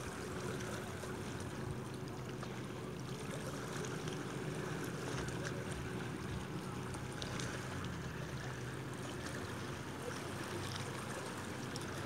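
Small, calm sea waves lapping and washing over rocks and shingle at the water's edge, a steady wash of water with faint trickling ticks.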